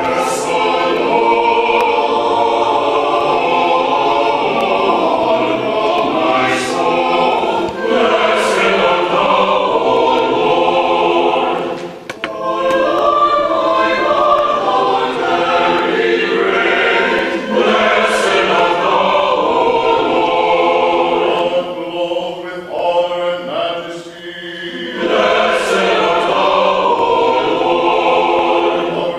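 A choir singing a slow sacred piece in long held chords, with short breaths between phrases about twelve seconds in and again about twenty-four seconds in.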